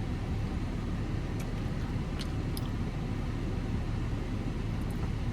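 Steady low rumble inside a car, with a couple of faint ticks.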